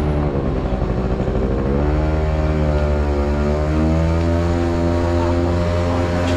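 Motorbike engine running steadily under way, its pitch shifting slightly a couple of times.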